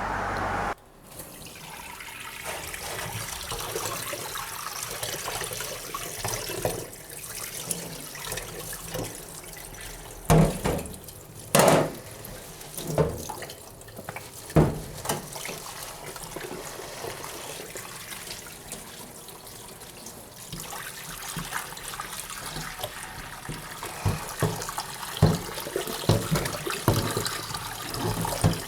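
Water running steadily from a tap into a sink, with scattered knocks and clunks of things being handled in it, loudest around ten to fifteen seconds in and again near the end.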